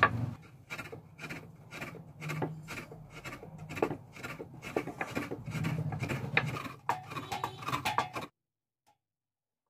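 Fresh coconut flesh being scraped out of a coconut half on the serrated blade of a hand coconut scraper, a rasping scrape repeated about three times a second. The scraping stops abruptly about eight seconds in.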